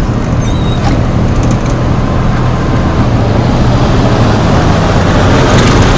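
Bus engine running steadily with road noise, growing slightly louder toward the end.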